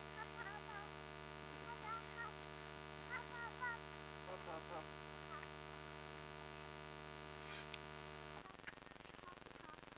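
Faint, steady electrical hum with a stack of even tones, which cuts off suddenly about eight and a half seconds in. Scattered short, high chirps sit over it, mostly in the first half.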